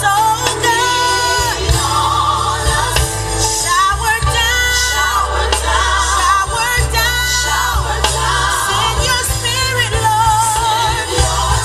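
Gospel song with a solo singer's wavering melody over backing vocals and a steady bass line.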